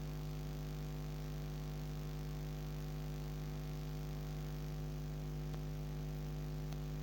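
Steady electrical mains hum, a low buzz with several overtones that does not change.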